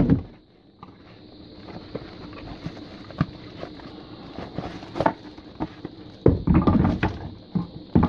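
Packaging being handled: cardboard and a moulded pulp tray give a few light knocks and scrapes, then a louder stretch of rustling near the end as the plastic-bagged docking station is taken out.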